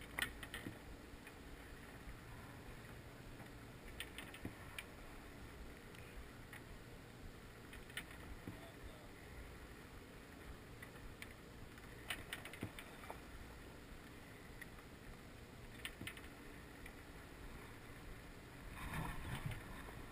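Small waves lapping and slapping against the hull of a small boat, giving short clicky knocks about every four seconds over a faint steady wash. Near the end comes a louder stretch of rubbing and handling noise as hands take hold of the rod and spinning reel.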